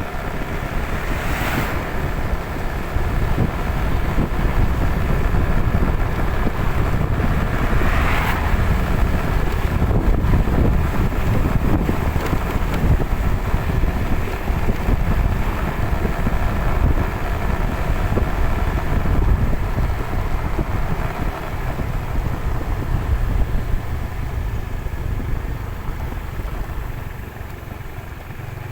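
Vehicle travelling on the road with heavy wind buffeting the microphone and a steady running note underneath, broken by two short louder swells, once near the start and again about eight seconds in.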